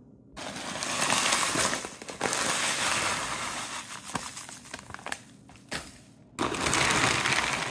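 Plastic bags of Pepperidge Farm herb-seasoned stuffing crinkling and rustling as they are handled and emptied, with dry stuffing crumbs pouring into a mixing bowl. The crinkling comes in two loud stretches: one lasting about four seconds from the start, and another near the end.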